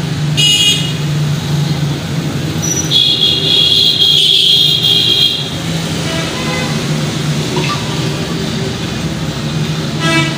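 Street traffic with vehicle horns: a short honk about half a second in, a long high-pitched horn blast lasting about two and a half seconds from about three seconds in, and another brief honk near the end, over a steady low engine hum.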